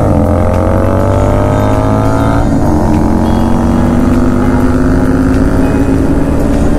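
KTM Duke 250's single-cylinder engine with a modified aftermarket exhaust, accelerating under full throttle in a short race: the revs climb, drop at an upshift about two and a half seconds in, then hold fairly steady as speed builds.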